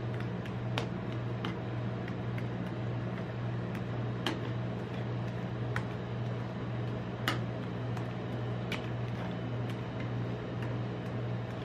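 Metal spatulas working raspberry ice cream base thin on the frozen steel plate of a rolled-ice-cream machine: irregular sharp clicks and light scrapes of blade on metal, the loudest about four and seven seconds in. A steady low machine hum runs underneath.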